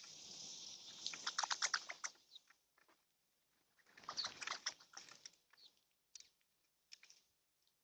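Birds at a feeder: a short rush of fluttering wings, then two bursts of rapid sharp clicking and tapping as they peck at seed, with a few scattered single taps near the end.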